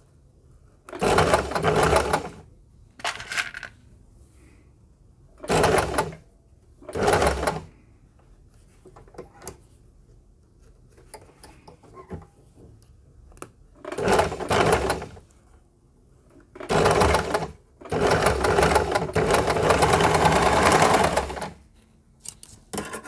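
Electric sewing machine stitching a seam in short stop-start runs of about a second each, with a longer run of about three seconds toward the end.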